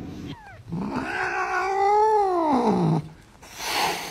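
A cat's long drawn-out yowl, rising and then falling in pitch, followed near the end by a short hiss.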